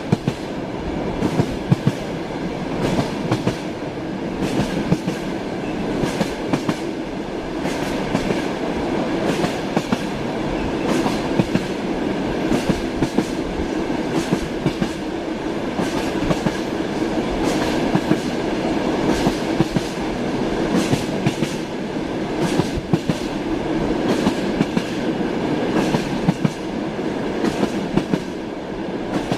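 Train wheels clattering over the rails: a steady running rumble with frequent sharp clicks and knocks.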